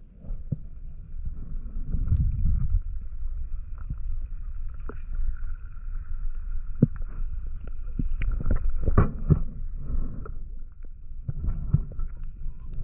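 Underwater recording from a spearfisher's camera: a low rumble of water moving against the housing, with scattered knocks and clicks and a faint steady high tone.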